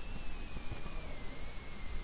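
Steady background hiss of the recording's noise floor, with a low rumble and a faint high whine that slowly falls in pitch.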